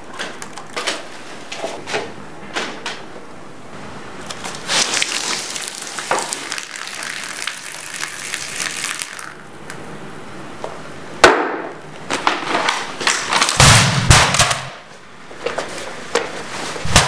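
Liquid pouring from a mug onto a laptop keyboard in a steady splashing stream for several seconds. Then a sharp crack and a quick run of loud crashes and heavy thuds as the laptop is smashed and breaks apart, with a few knocks after.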